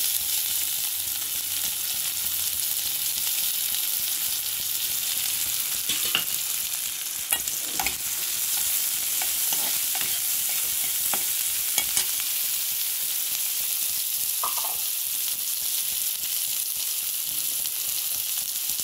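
Chopped onions frying in hot mustard oil in a kadhai: a steady sizzle, with a steel spatula now and then scraping and tapping the pan as they are stirred.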